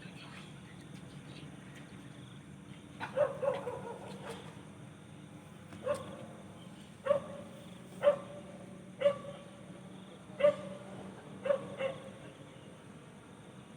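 A dog barking, about nine short barks spaced roughly a second apart from about three seconds in, over a steady low background hum.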